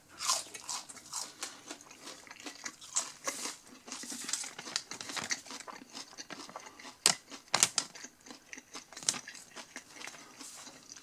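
Someone chewing a fried onion ring with its mouth close to the microphone: irregular crunching and crackling.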